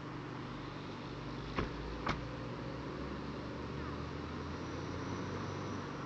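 A vehicle engine idling with a steady low hum, broken by two sharp clicks about a second and a half and two seconds in.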